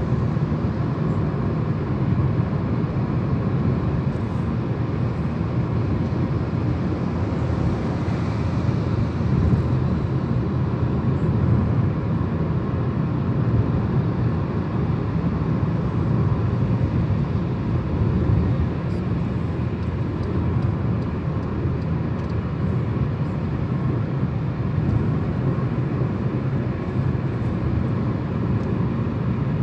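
Steady low rumble of a moving car's tyres and engine as heard from inside the cabin, running evenly at cruising speed.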